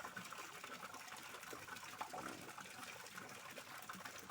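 Steady rain: an even hiss of many small drops.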